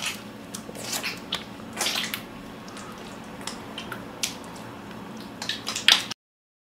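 Hands coated in a thick white lather rubbing and squeezing together, making irregular wet squishes over a faint steady hum. The sound cuts off abruptly about six seconds in.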